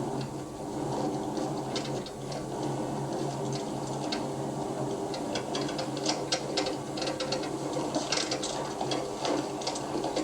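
A vehicle engine running steadily, with rapid irregular clicking and rattling over it that grows thicker in the second half.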